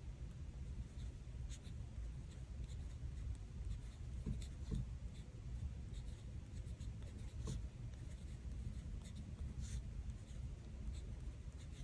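A pen writing on planner paper: faint scratching strokes with scattered small ticks.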